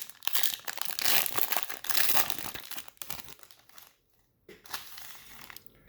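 A thin trading-card pack wrapper being torn open and crinkled in the hands, loudest in the first three seconds, then a brief pause and lighter rustling.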